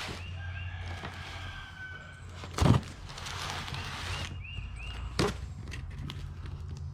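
Junk being handled while a box is unpacked, with two sharp knocks, about a third of the way in and again about three quarters through, the first the louder. A steady low hum runs under it, with a few short high chirps.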